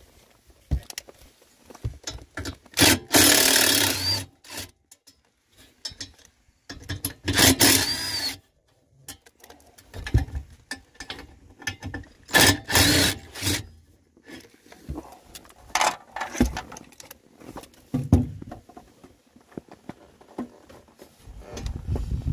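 Ridgid cordless driver backing out the 8mm bolts of a steel under-dash panel in three loud runs of about a second each, with clicks and metal rattles of handling between them.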